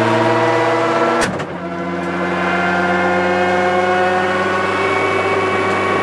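Ford Focus RS WRC rally car's turbocharged four-cylinder engine running at low speed on the road, heard from inside the cabin. A sharp clack comes about a second in, after which the engine note climbs slowly as the car pulls away.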